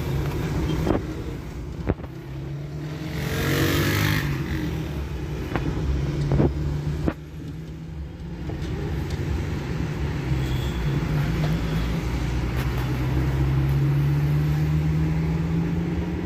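Car engine and road noise heard from inside the cabin as the car pulls out into traffic and drives on, the engine note rising slowly toward the end as it speeds up. A brief rushing swell comes about three to four seconds in, and a few light knocks sound in the first half.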